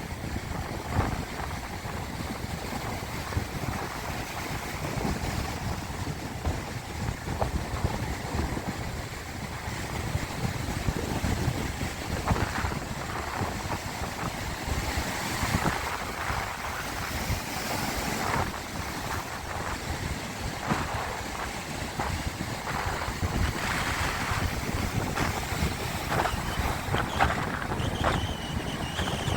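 Sea water washing and splashing in small waves, with wind rumbling on the microphone.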